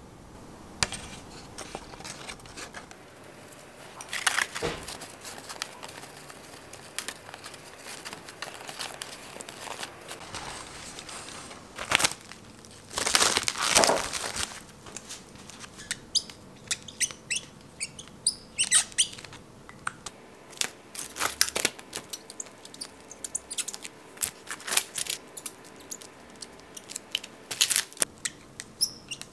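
Plastic-wrapped foam meat trays being handled on a counter, the cling film crinkling, with a few louder rustles near the middle. In the second half come many short high squeaks and ticks as a marker writes on the plastic wrap.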